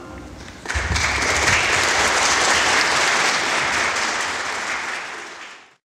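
Audience applauding, starting sharply about a second in and cut off abruptly near the end.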